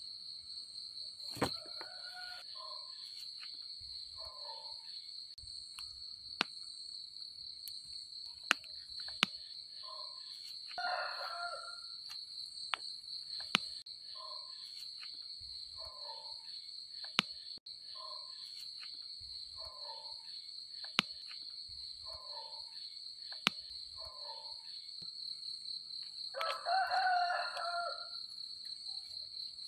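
A rooster crowing twice, about a third of the way in and again near the end, over a steady high-pitched insect trill. Short low calls repeat every second or two, with a few sharp clicks between them.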